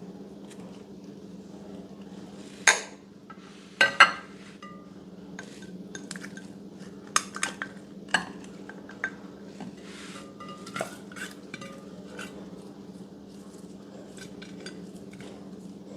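Irregular sharp clinks and taps of a utensil against a container, the loudest pair about three and four seconds in, over a steady low hum.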